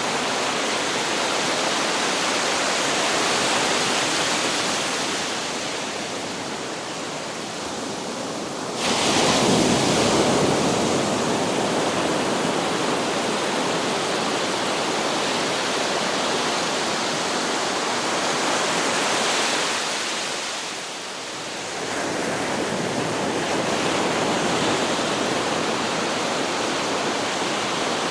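Ocean surf on a beach: a continuous wash of waves, with a wave breaking suddenly about nine seconds in and the sound easing briefly around twenty seconds.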